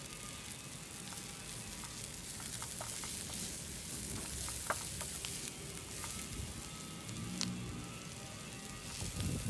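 A miniature samosa frying in hot oil in a tiny steel kadai: a steady, soft sizzle with a few sharp pops.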